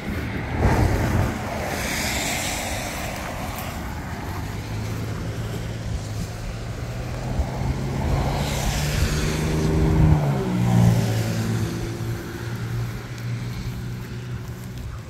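Traffic passing on a wet road: tyres hissing as cars go by. A heavier vehicle's engine hum builds, then drops in pitch as it passes about ten seconds in.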